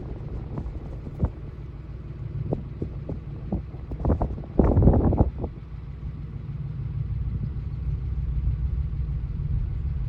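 Wind buffeting the microphone as a steady low rumble, with scattered knocks and a louder gust about halfway through.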